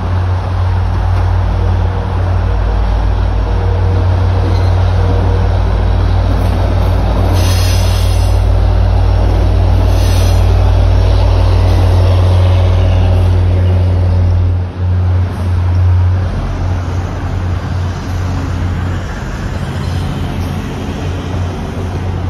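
MBTA diesel locomotive running loud as it passes close by, its engine hum dropping away about two-thirds of the way through as the passenger coaches behind it roll past. Two brief high-pitched screeches come about seven and ten seconds in, over road traffic.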